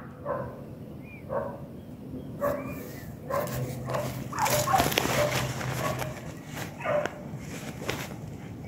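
Hunting beagles baying on the trail of a wild boar: short repeated yelps and bays, with rustling in the undergrowth about the middle.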